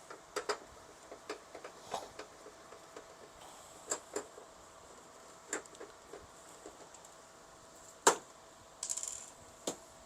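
Scattered small clicks and taps of a screwdriver and hands working at a printer's plastic side cover, with one louder click about eight seconds in.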